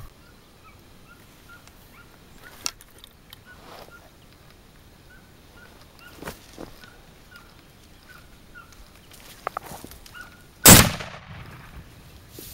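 A single close, loud rifle shot about three quarters of the way in, followed by a rolling echo. Before it come faint, repeated short high calls from animals in the distance and a few small clicks.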